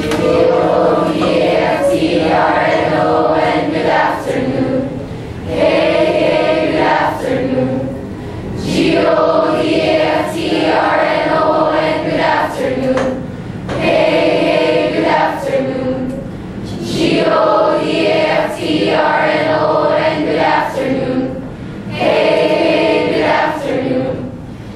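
A class of students singing together as a group, in phrases a few seconds long with short pauses for breath between them.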